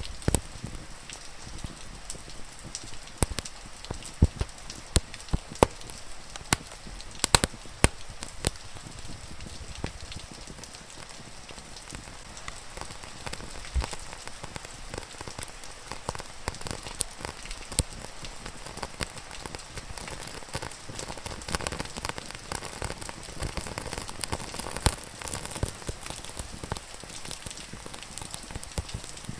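Steady rain with a fire crackling and popping over it; the pops come thick and sharp for the first several seconds, then grow sparser.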